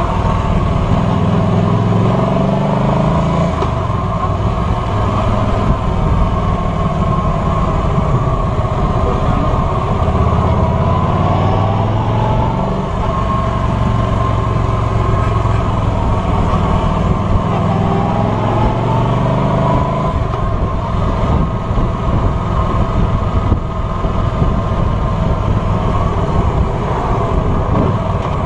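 Cruiser motorcycle's engine running on the road, its pitch rising and falling several times as it accelerates and eases off, with wind noise over the microphone.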